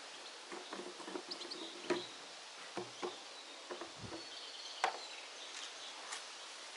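A series of light knocks and clicks, as of parts or tools being handled, the sharpest a little before five seconds in, with faint bird chirps in the background.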